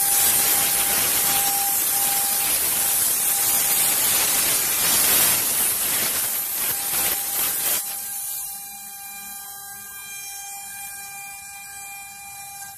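Compressed-air hose hissing loudly as it blows wood dust off a freshly CNC-carved relief, stopping about eight seconds in. A steady tonal hum from the CNC router runs underneath throughout.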